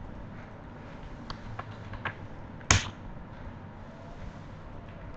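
A few sharp clicks and taps from a computer mouse and keyboard, with one louder click about halfway through, over a low room hum.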